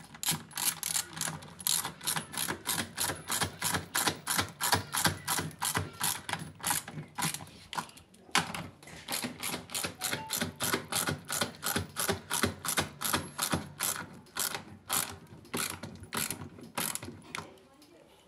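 Ratcheting socket driver turning a bolt tight, clicking steadily about three to four times a second, with a short pause about halfway through.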